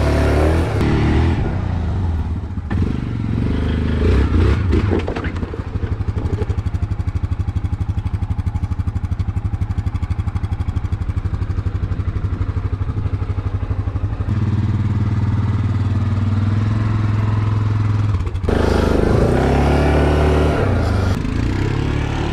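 Yamaha Grizzly 700 ATV's single-cylinder engine running, idling steadily through the middle stretch and at higher engine speed before and after, with the note changing abruptly a few times.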